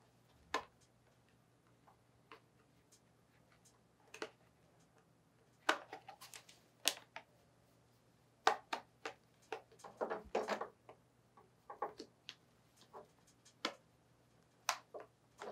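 Irregular light clicks and taps as a clear lens is worked into the slit of a rubber respirator lens gasket, with a short stretch of rubbing about ten seconds in.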